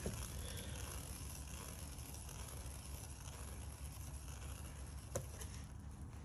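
Faint rustling and handling noise as a paint-covered canvas is tilted and shifted by a gloved hand, over a steady low hum. There is one sharp click about five seconds in.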